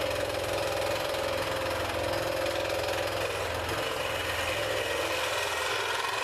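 Porter-Cable scroll saw running steadily, its blade stroking rapidly up and down as it cuts a circle out of quarter-inch walnut.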